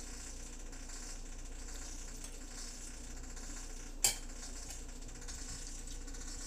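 Faint steady hiss with a low hum, and one sharp clink about four seconds in from a metal serving spoon knocking against a dish.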